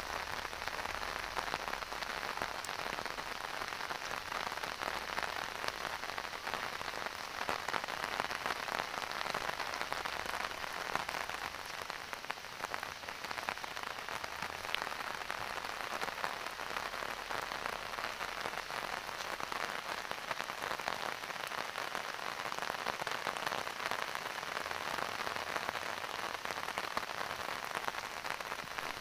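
Steady rain falling, a dense patter of many small drop impacts that holds at an even level throughout.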